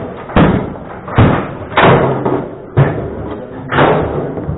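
Table football play: five hard, sharp knocks of the ball being struck by the players' figures and hitting the table walls, coming roughly once a second at uneven intervals.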